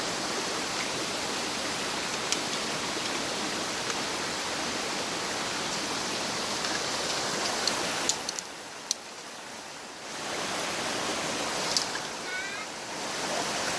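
Valley stream rushing over rocks: a steady wash of water noise that drops quieter for about two seconds past the middle, then comes back.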